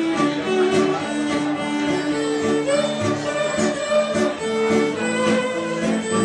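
Live fiddle and acoustic guitar playing a lively folk tune together, the fiddle carrying the melody in quick running notes over the guitar.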